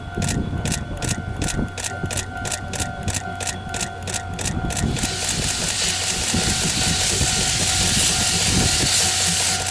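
C58 steam locomotive pulling away, its exhaust beating evenly at about three to four chuffs a second. About halfway through, a loud steady hiss comes in and covers the beats.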